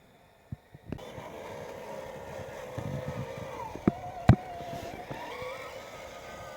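RC model truck's electric motor and gearbox whining as it drives, the pitch shifting with throttle, starting after a few clicks about a second in. Two sharp knocks near the middle, the second the loudest, as the truck bumps over the terrain.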